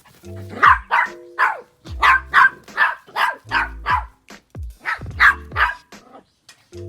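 Small Papillon–Chihuahua mix dog barking in quick runs of short, sharp barks, about a dozen in three bursts, over background music.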